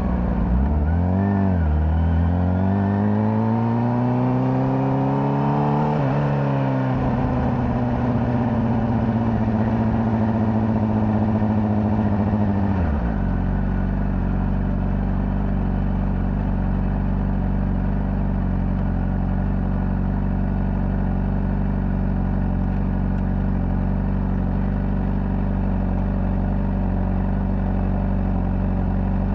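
Honda CBR600RR's inline-four on its stock exhaust: it blips briefly, then pulls with rising revs, drops sharply at an upshift about six seconds in and runs on under steady revs. About thirteen seconds in the revs fall away and it settles to a steady idle for the rest.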